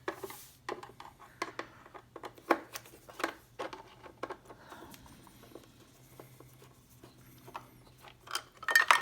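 Screwdriver working two small screws out of a plastic pedal cover: irregular clicks and scrapes. Near the end comes a louder clatter of metal clinks with a brief ring.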